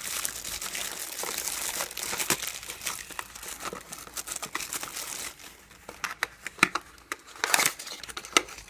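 Clear plastic film crinkling as it is peeled off a small cardboard box. After about five seconds this gives way to sparser crackles and a few sharp clicks as the box's cardboard flaps are pulled open.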